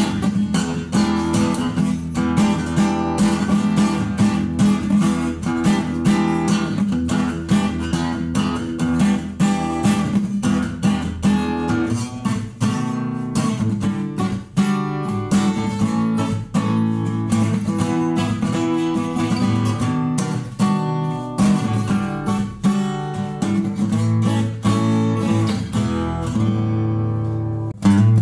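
A Fender FA-25 steel-string dreadnought acoustic guitar being strummed, chord after chord at a steady pace. Near the end a chord is left ringing.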